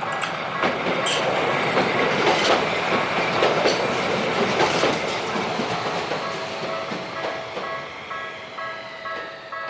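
Tokyu Setagaya Line tram running over the level crossing, its wheels rumbling and clacking over the rail joints, loudest in the first half. The crossing's electronic warning bell rings throughout, its steady tones clearer as the tram moves away.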